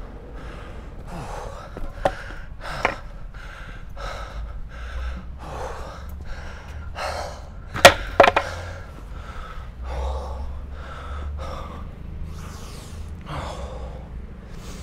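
Longboard wheels rolling over pavement with a low rumble. Over it comes quick, heavy panting from the rider, about one breath every two-thirds of a second. A few sharp clacks cut through, the loudest about eight seconds in.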